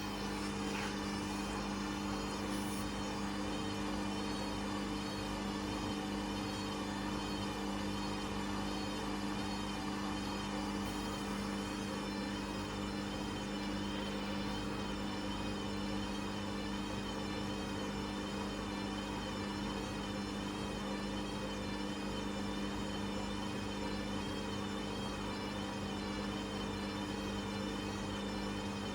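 Hoover Custom Vision washing machine running: a steady motor hum under a high whine that wavers evenly up and down.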